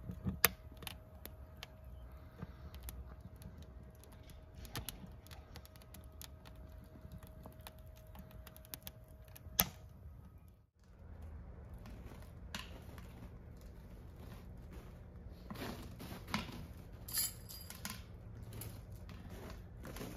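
Scattered light metallic clicks and taps as steel tent-stove parts and pipes are handled. They break off abruptly about ten seconds in, and fainter handling knocks follow over a low steady hum, with a short sharp rustle near the end.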